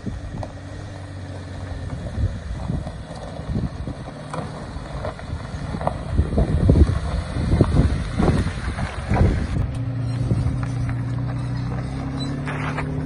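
A vehicle engine running steadily while driving, with irregular knocks and rattles through the middle, and the engine pitch stepping up near the end.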